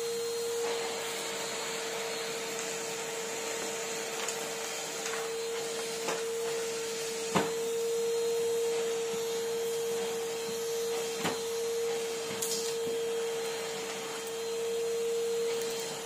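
Numatic Henry vacuum cleaner running steadily: a constant motor whine over rushing air as the floor tool is worked over carpet, with a few short knocks from the tool and hose, the sharpest about seven seconds in.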